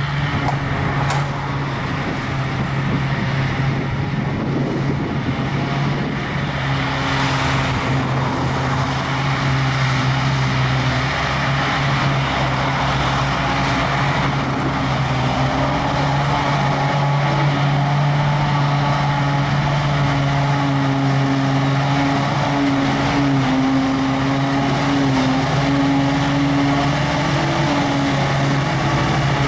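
A Claas Jaguar self-propelled forage harvester chopping grass under load, its engine and chopper drum running steadily as it blows the crop into a trailer, together with the engine of the Fendt tractor pulling the trailer alongside. It is a loud, steady drone with a low hum, and its higher pitch wavers slightly in the second half.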